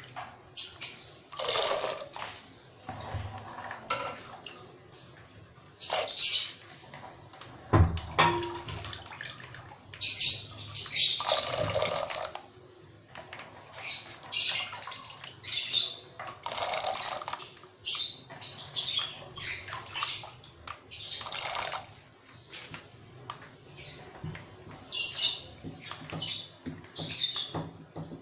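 Hands scooping handfuls of soaked chickpeas out of their soaking water and dropping them into water in an aluminium pressure cooker: irregular splashes and drips, one every second or two.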